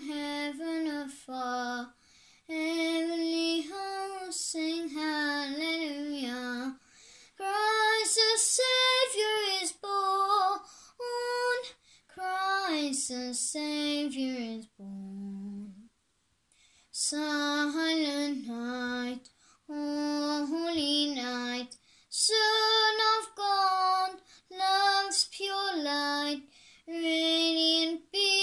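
A young boy singing a song solo and unaccompanied, in short phrases with breaths between them and a longer pause about halfway through.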